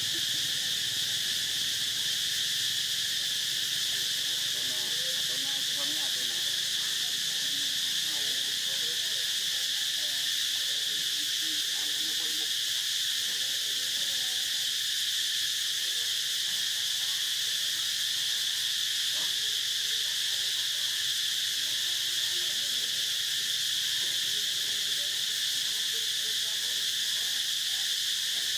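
Steady, high-pitched chorus of insects, unbroken throughout.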